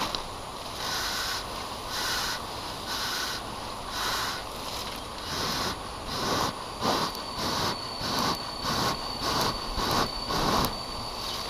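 Rhythmic hissing puffs as smoke is blown onto a wild bee nest to calm the bees before harvest: about one puff a second at first, quickening to about two a second and growing stronger in the second half. A thin, steady high whine, likely an insect, joins about seven seconds in.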